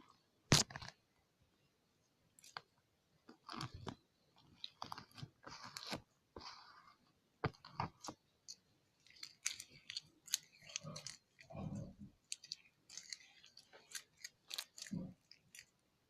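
Slime being worked with activator: irregular wet squishes and sticky clicks, short and uneven, throughout.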